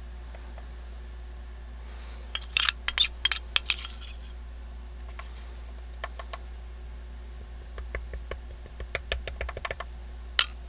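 A metal spoon clinking and tapping against a glass bowl and inside a hollow wooden dummy head as a thick filler mix is scooped and packed in around the glass eyes. There is a cluster of sharp clicks a couple of seconds in, a run of lighter ticks later, and one sharp click near the end.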